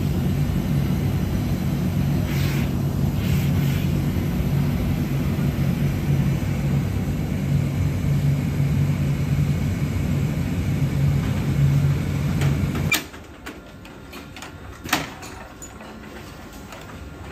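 Steady low mechanical hum of workshop machinery. It cuts off suddenly near the end, leaving a much quieter room with a few light clicks and knocks.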